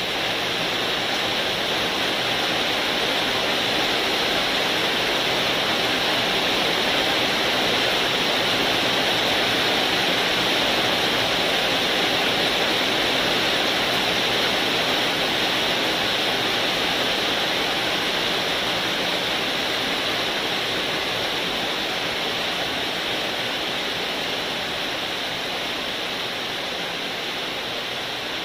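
A steady rushing noise like heavy rain or a fan, rising a little through the middle and easing off toward the end.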